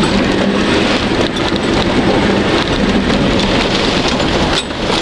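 Muddy water spraying and drumming against the windscreen and body of an off-road 4x4 as it ploughs through deep water, loud and continuous over the engine's steady running.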